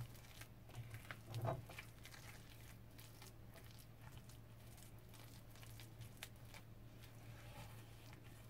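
Faint wet squishing of a metal utensil stirring thick, floury lotus root pancake batter in a bowl, with occasional light clicks, over a steady low hum.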